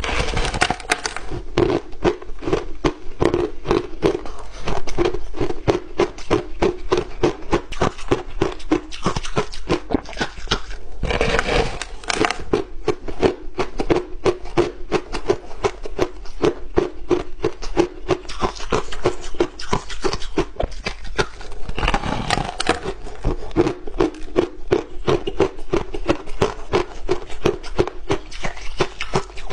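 Close-up crunching of crushed ice being bitten and chewed, a rapid continuous crackle with louder bursts as fresh mouthfuls are taken at the start, about eleven seconds in and about twenty-two seconds in.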